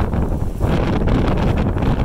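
Blizzard wind blowing hard across the microphone: loud, gusty buffeting heaviest in the low end, easing briefly about half a second in.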